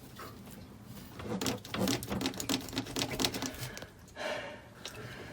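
Rapid clicking and rattling of tools and hose fittings being worked by hand, a dense run of small clicks for a couple of seconds, followed by a short scrape.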